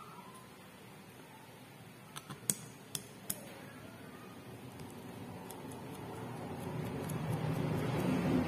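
A few light metallic clicks and clinks, four in a second and a half, as a motorcycle carburetor and a small screw are handled. A low background rumble swells gradually through the second half.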